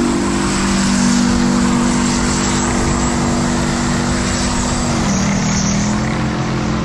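Tank diesel engine running loudly as the tank drives past, a steady droning note that drops slightly in pitch about five seconds in.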